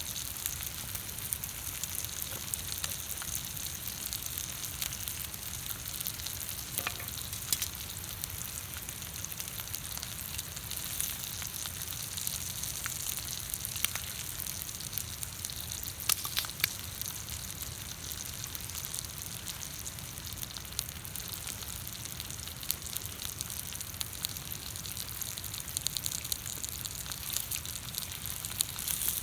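Food sizzling steadily on a steel griddle plate over a campfire, with scattered sharp pops and crackles.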